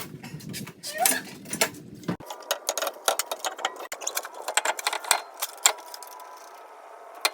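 Quick, irregular metallic clicks and clinks of a ratchet and socket as the wheel's lug nuts are run down and tightened. The clicking comes thickest in the middle of the stretch.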